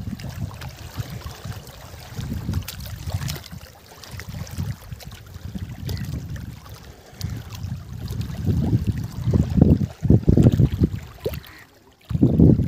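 Wind buffeting the microphone in uneven low gusts, strongest in the last few seconds and dropping out briefly near the end.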